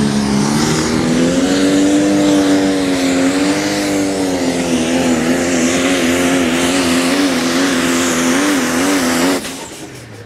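Turbocharged diesel engine of a Pro Stock pulling tractor at full throttle during a pull, its pitch rising a little at first and then wavering up and down under the load. The sound cuts off suddenly near the end.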